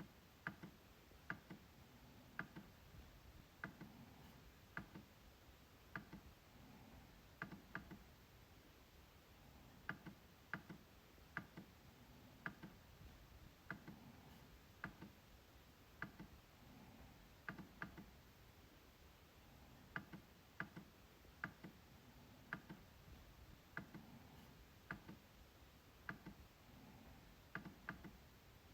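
MacBook trackpad clicking: faint, sharp clicks at an uneven pace, about one or two a second, some in quick pairs like double-clicks.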